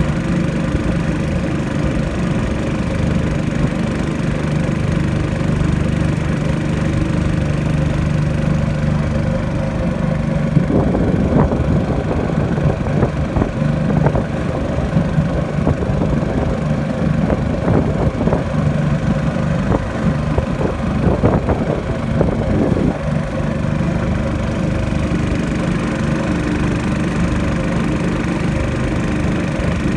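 Boat engine running steadily, with a rougher, slightly louder stretch through the middle.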